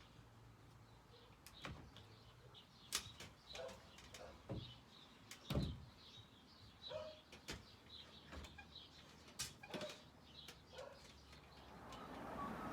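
Faint, irregular knocks and clicks, a few strokes every couple of seconds, with small birds chirping faintly.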